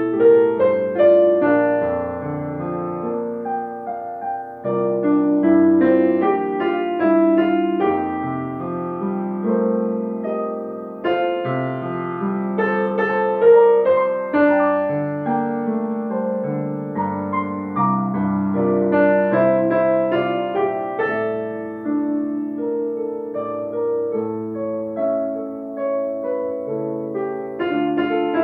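Piano playing the accompaniment of a choral song, chords over flowing broken-chord figures in the left hand.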